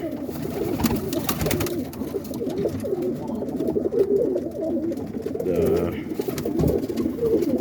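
A loftful of Birmingham Roller pigeons cooing at once, many overlapping coos with no pause, plus a few short clicks in the first couple of seconds.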